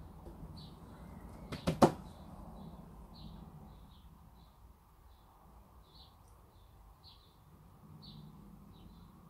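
A small bird chirping repeatedly, short high chirps about once a second, with two sharp knocks close together a little under two seconds in, which are the loudest sounds.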